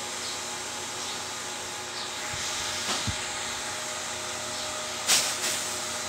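Steady background hiss, with faint knocks of a handheld phone being handled about three seconds in and a sharper click about five seconds in.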